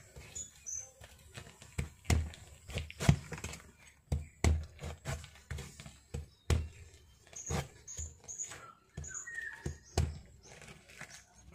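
Durian husk cracking and splitting as gloved hands pry the spiny fruit open along its segments: a string of sharp, irregular cracks and snaps, one or two a second.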